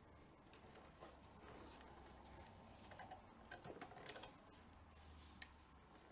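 Faint rustling and scratching with scattered small clicks, as a leather tabla strap (badhi) is worked through a newly opened hole in the braided edge of the tabla skin. There is one sharper tick near the end.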